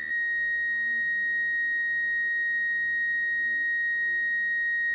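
A steady, high-pitched electronic beep tone, one pitch held without a break.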